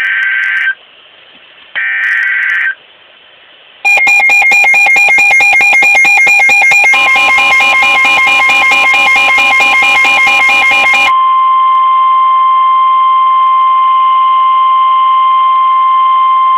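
NOAA Weather Radio Emergency Alert System tones: two short screeching data bursts of the SAME header, then a loud, rapidly pulsing electronic alarm. A steady warning alarm tone of about 1050 Hz joins the pulsing alarm and continues alone after about eleven seconds, marking a severe thunderstorm warning.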